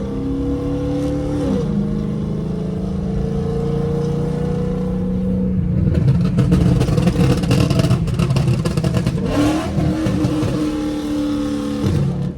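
Dodge Charger R/T's 5.7-litre HEMI V8 exhaust pulling with a steady note that climbs slowly in pitch, with a brief dip about a second and a half in. It then breaks into about four seconds of rapid crackling and popping from its burble tune, before settling back to a steady note that drops away near the end.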